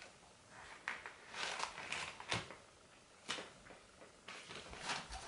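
Newspaper rustling and crinkling, with a few sharp knocks, as pieces of spiky durian husk are handled and set down on it.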